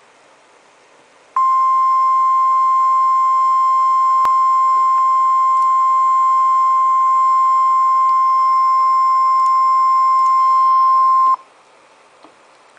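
NOAA Weather Radio warning alarm tone: a single steady beep that starts just over a second in, holds for about ten seconds and cuts off suddenly, over faint radio hiss. It signals that a warning message, here a severe thunderstorm warning, follows.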